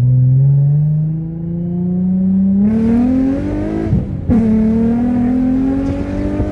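Infiniti G35's 3.5-litre V6 through a 3-inch straight exhaust with test pipes, loud and climbing in revs under acceleration. About four seconds in the rise breaks off briefly, then the revs climb again.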